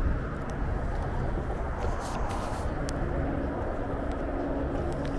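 Outdoor background noise: a low wind rumble on the microphone with a vehicle engine running nearby, and a few brief rustles about two to three seconds in.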